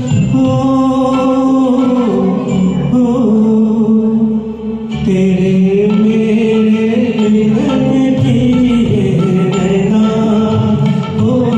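Karaoke backing track of a Hindi film song playing: a melody of long held notes, moving step by step, over a continuous accompaniment.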